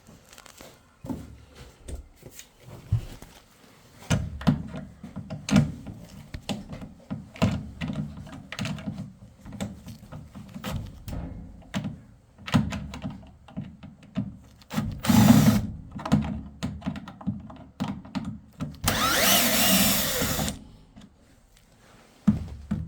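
Power screwdriver backing screws out of a washer's panels: a short run about fifteen seconds in and a longer steady whirr near the end, with clicks and knocks of parts being handled in between.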